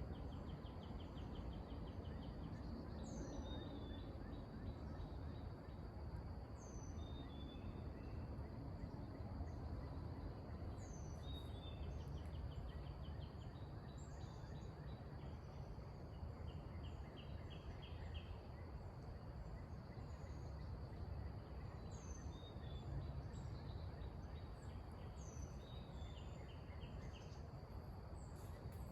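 Outdoor nature ambience: a steady high drone of insects with a bird repeating a short down-slurred call every few seconds, and some quick trilled notes. A low steady rumble runs underneath.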